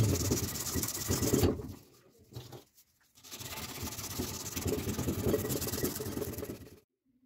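Sandpaper rubbed rapidly back and forth by hand over a cleaver's wooden handle: a fast, scratchy rasping in two spells, with a short break about two seconds in, stopping suddenly near the end.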